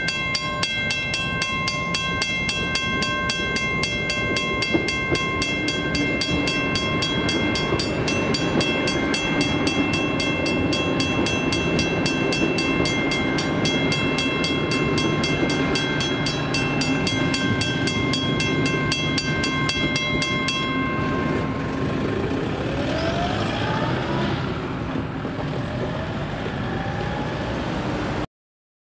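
Western Cullen Hayes mechanical level-crossing bell ringing with rapid, even strokes over the rumble of a passing Xplorer diesel railcar train. The bell stops about three-quarters of the way through, leaving the train running past, and the sound cuts off suddenly just before the end.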